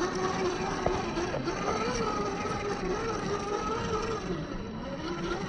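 Electric motor and gearbox of a 1/10-scale RC crawler whining, the pitch wavering up and down as the throttle changes.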